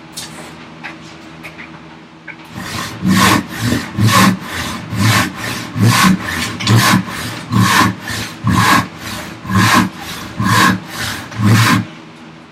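Hand saw cutting through ash with slow, even push strokes, about ten of them a little under a second apart, starting a few seconds in.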